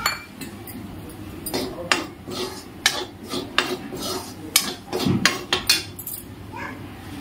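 Metal spoon scraping and knocking against a metal kadhai while dry arrowroot powder is stirred in it, a run of sharp clicks and scrapes starting about a second and a half in and stopping near the end.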